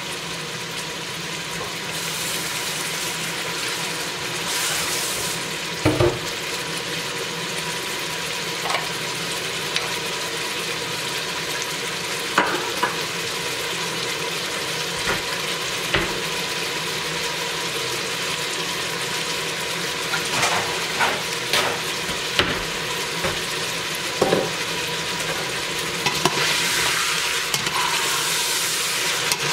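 Lamb meat sizzling steadily as it fries with onions in hot oil in a stainless steel pot, with a few sharp clinks and knocks scattered through.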